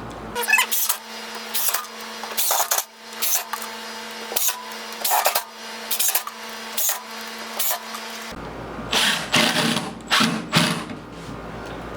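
Cordless screw gun running with a steady motor whine, broken by short sharp bursts about once a second, as it drives screws into wood. The run stops about eight seconds in and is followed by a few more scattered bursts.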